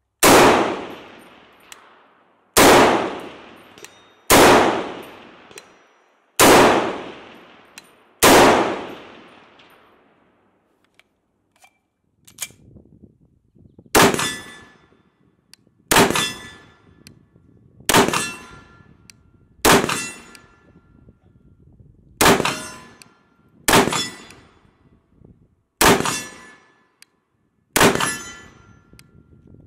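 MAS 49/56 semi-automatic rifle firing 7.5×54mm rounds: five shots about two seconds apart, each ringing out in a long echo. After a pause of a few seconds comes a second string of eight shots at the same pace, with shorter echoes.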